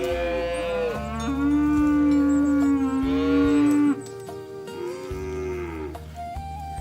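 Cattle mooing: a few drawn-out moos that bend in pitch. The loudest is a long, steady moo starting about a second in and lasting around two and a half seconds. Background flute music plays underneath.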